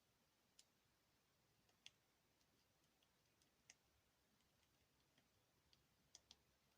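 Near silence broken by a dozen or so faint, sharp clicks at uneven spacing, with two close together near the end: the keypad buttons of a Sony Ericsson K508i mobile phone being pressed.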